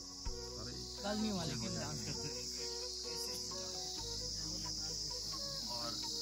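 Steady, high-pitched chorus of insects shrilling in grassland.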